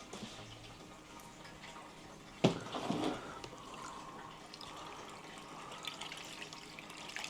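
A sharp knock about two and a half seconds in, then water pouring steadily for several seconds.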